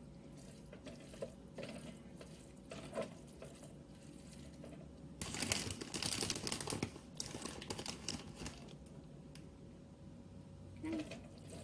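A spoon stirring a thick, wet mixture of ground beef, enchilada sauce, corn and shredded cheese in a pan, with soft scrapes and squelches. The stirring is loudest and busiest for about two seconds near the middle.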